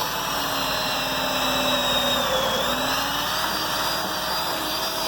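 Electric drill running under load, boring a 3/8-inch hole through a wooden cornhole leg. Its steady high whine dips slightly about halfway through as the bit bites, then comes back up.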